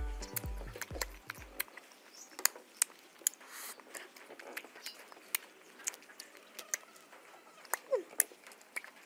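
Background music with a steady beat cuts out in the first second and a half, followed by close-miked eating noises as mango slices are bitten and sucked: a series of sharp wet smacks and clicks, a few a second, with a short hum near the end.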